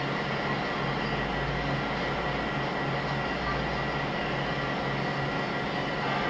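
NordicTrack treadmill's motor and belt running steadily at walking pace, a constant high whine over a low hum.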